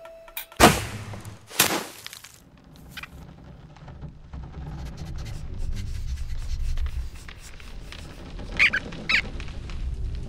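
Cartoon sound effects: two sharp, loud noises about half a second and a second and a half in, then a low rumble that builds, and two short high squeaks from the rodent characters near the end.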